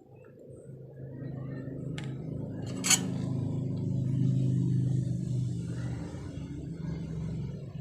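A low engine hum that grows louder for about four seconds and then eases off, as of a motor vehicle going by. Two sharp clicks come about two and three seconds in.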